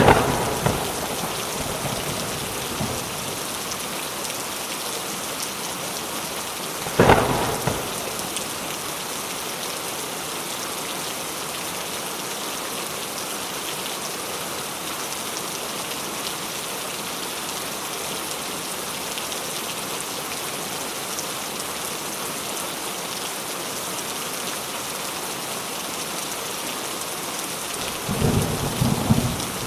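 Steady rain falling, with thunder: a sharp loud clap right at the start, another about seven seconds in, and a lower rumble near the end.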